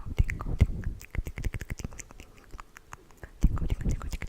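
Rapid, irregular tapping and crackling right against a microphone, an ASMR trigger sound. It is busy at first, thins out and goes quieter for a couple of seconds, then picks up again near the end with a few heavier taps.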